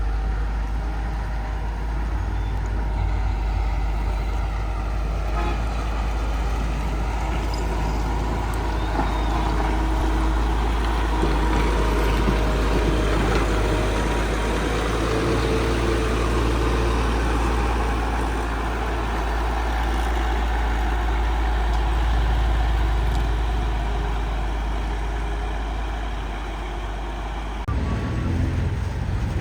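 Heavy diesel engines of earthmoving machinery and dump trucks running steadily, with an abrupt change in the sound near the end.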